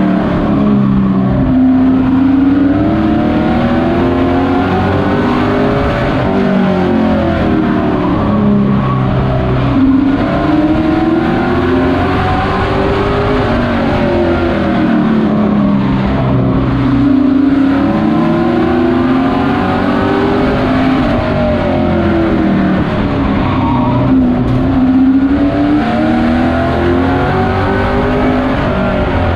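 Pro truck race engine heard from inside the cockpit under racing load, revving up through the gears along the straights and dropping off into the turns. Its pitch climbs and falls again about every seven to eight seconds, lap after lap.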